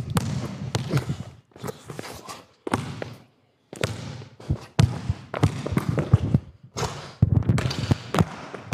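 Basketball bouncing on a hard indoor court, mixed with players' footsteps; the impacts come irregularly and echo in a large gym.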